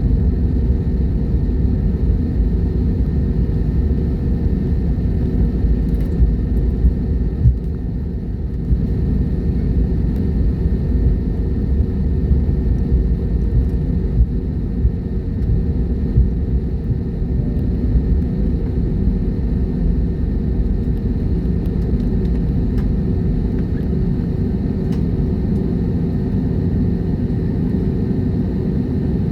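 Jet airliner's steady low rumble, with a few faint clicks.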